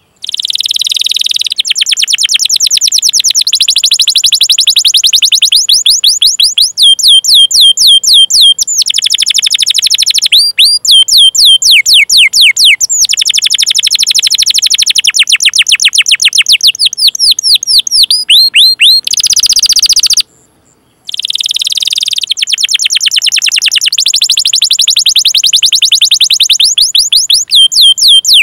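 Domestic canary singing long rolling trills of fast, repeated falling 'cuit-cuit' chirps, broken by a few short pauses and a brief silence about twenty seconds in.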